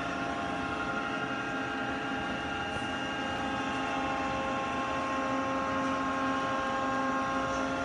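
Powered-up Takisawa TC-20 CNC turning center running at a standstill, a steady machine hum made of several held tones. It grows slightly louder near the end.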